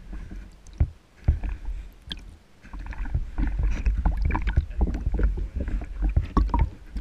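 Water sloshing and bubbling around a submerged camera as a dog plunges its muzzle into the water, with irregular knocks and bumps as it nudges the camera. It is quieter about two and a half seconds in, then busier and louder.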